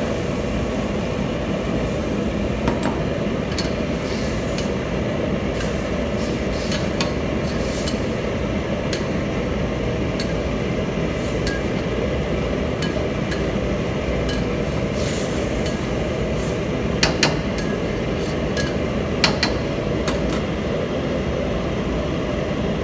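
A metal spoon clinking and scraping against a steel wok as chicken curry is stirred, the sharpest clinks about 17 and 19 seconds in, over a steady low rushing noise of a commercial kitchen's gas range.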